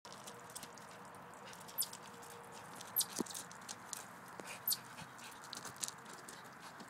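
Bichon Frise sniffing and scrabbling at a granite stone lantern on white gravel, with scattered small clicks and crunches from its paws and the stones, and three brief high chirps falling in pitch.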